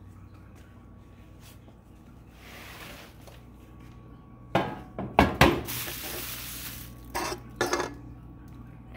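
Low steady room hum, then from about halfway a cluster of sharp clunks and clatters with a rubbing scrape, and two more knocks near the end: hands handling an air fryer and the phone beside it.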